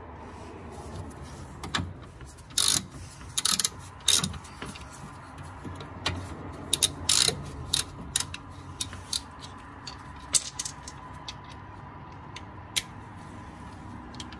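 Socket ratchet clicking and metal tools clinking against the sway bar bracket bolts as a 15 mm socket is worked on them. The clicks come irregularly, with a few louder knocks.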